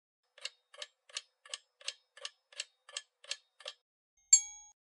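Countdown-timer sound effect: ten clock-like ticks, about three a second, then a single bright ding, the loudest sound, as the timer reaches zero.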